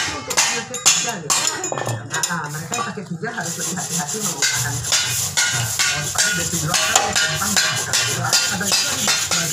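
Scraper blade scraping body filler off a steel motorcycle fuel tank: a run of short scraping strokes with metallic clinks, turning into steadier scratching after about three seconds.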